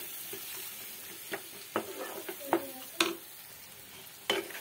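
Spatula stirring chopped tomatoes and onions frying in oil in a pan: a low sizzle with several sharp knocks and scrapes of the spatula against the pan, the loudest about three seconds in.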